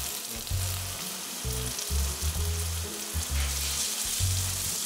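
Minced meat frying in a pan, a steady hiss of sizzling, under background music with a bass line that changes every half second or so.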